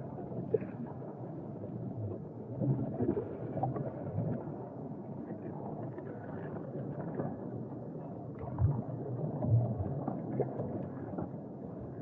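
Underwater scuba sound: a muffled, bubbling rumble of a diver's regulator and air bubbles, with louder gurgling clusters of exhaled bubbles about three seconds in and again about nine seconds in.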